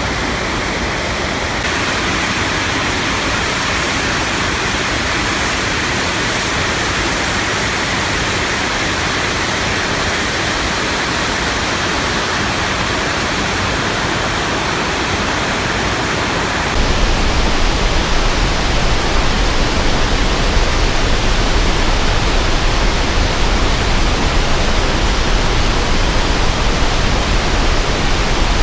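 Water rushing from a dam release, a steady loud noise. About two-thirds of the way in it changes suddenly to a louder, deeper rumble.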